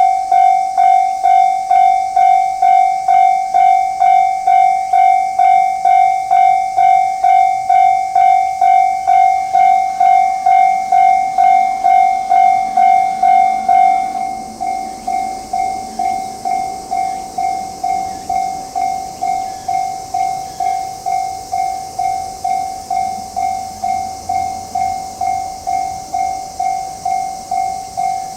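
Japanese railway level-crossing alarm bell ringing in a steady clang at about two strikes a second, the signal that a train is approaching and the crossing is closing. About halfway through the bell becomes quieter and thinner.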